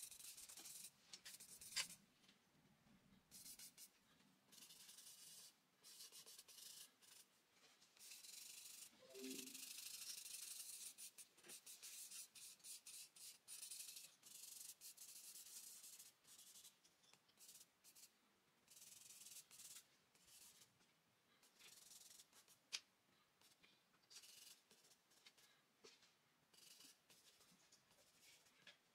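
Charcoal stick scratching and rubbing across drawing paper in short, irregular strokes, faint throughout, with two sharp taps of the stick on the paper.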